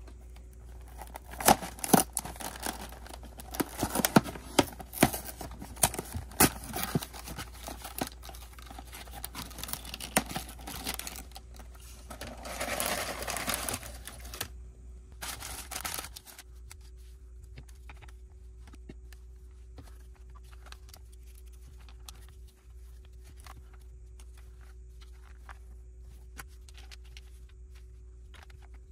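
A cardboard Lego box being torn open: a run of sharp tearing and snapping sounds. About twelve seconds in, the plastic bags of bricks slide out of the box with a crinkling rush, followed by a few soft ticks as the bags are set down.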